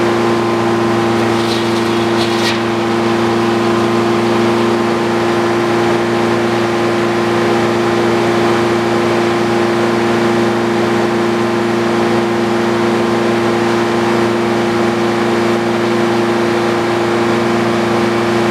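Old Frick sawmill running steadily at an even pitch, a loud hum of several held tones with no change in load. Faint brief high ticks come about two seconds in.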